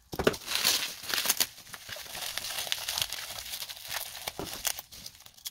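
Bubble wrap crinkling and crackling as it is snipped with scissors and pulled off by hand, in irregular bursts of small crackles, busiest in the first second and a half and quieter near the end.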